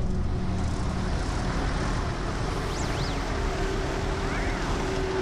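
Diesel engines of heavy loaded dump trucks running at low speed, a steady low rumble.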